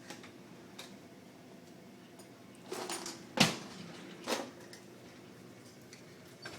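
Handling noises: light rustling and clatter, then a sharp hard knock about halfway through and a softer one a second later, like hard objects being set down.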